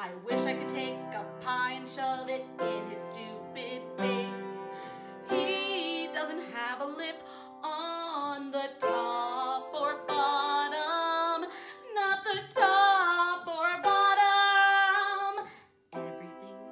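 A woman singing with her own upright piano accompaniment. Her voice grows louder into long, wavering held notes near the end, then breaks off suddenly.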